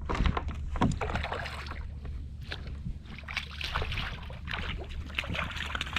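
Water slapping against a kayak's hull, with irregular small knocks and rustles on board over a steady low rumble.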